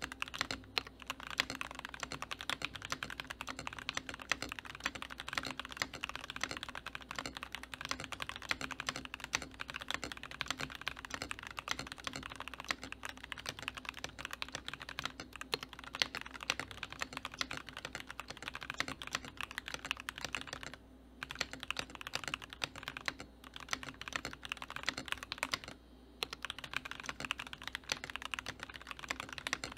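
Fast typing on a Keychron V3 mechanical keyboard with linear Keychron K Pro Red switches and PBT keycaps: a rapid, continuous stream of key clacks, broken by two short pauses late on.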